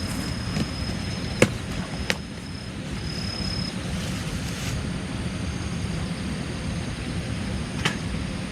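A steady low rumble with four sharp snaps or cracks, the loudest about one and a half seconds in, and a thin high steady tone during the first few seconds.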